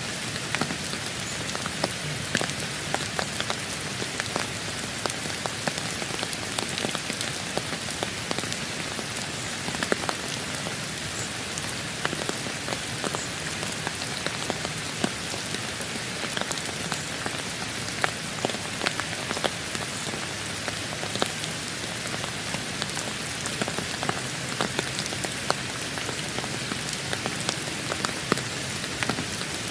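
Steady rain falling, with many individual drops clicking sharply on a hard surface all the way through.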